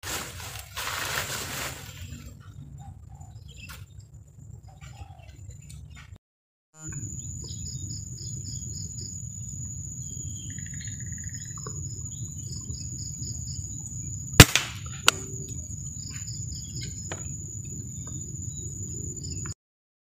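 Birds chirping in short repeated series over a steady high whine. About two-thirds of the way through, a scoped air rifle fires a single sharp shot, followed under a second later by a fainter click.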